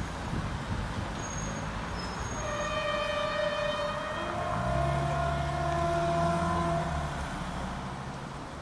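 Horn of the MR 4055 / MRD 4255 diesel multiple unit sounding as it approaches: two held notes, one straight after the other, starting about two and a half seconds in and lasting about four and a half seconds together. Under them the train's diesel engine drones, growing louder about halfway through as it nears.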